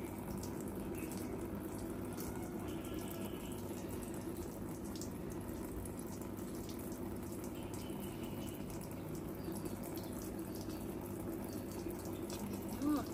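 Water running steadily, with a low, even hum underneath.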